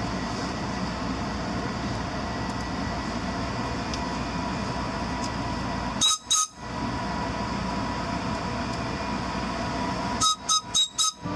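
Passenger train rolling with a steady rumble, broken by short pitched signal blasts: two about six seconds in, then four quick ones near the end.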